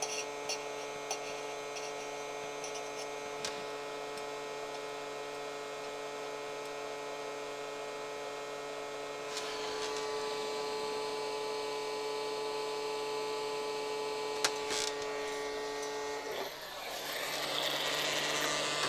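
Steady electrical hum and whine from soldering bench equipment. About sixteen seconds in it gives way to a louder rush of air as a hot-air tool starts blowing to heat the LED strip from below and reflow the solder.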